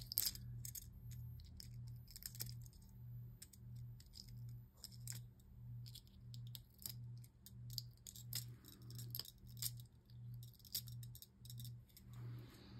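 Small scattered clicks and ticks of a box knife cutting small screws and plastic parts free from a plastic frame sheet (runner). Under them runs a low hum that swells and fades about three times every two seconds.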